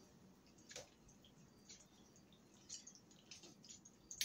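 Faint, scattered wet squishes and light scrapes of a spoon stirring cooked macaroni and ground turkey mixture in an aluminium foil pan, with a sharper click near the end.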